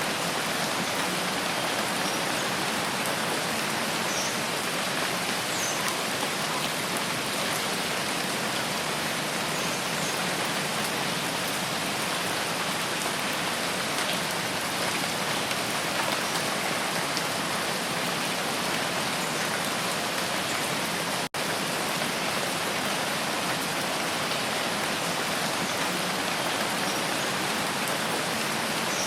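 Steady rain falling, a dense even hiss of many drops, with a momentary dropout about two-thirds of the way through.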